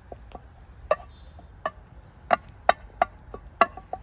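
Wooden spatula knocking and scraping against a stainless-steel frying pan while scrambled eggs are stirred, in irregular sharp taps about two a second.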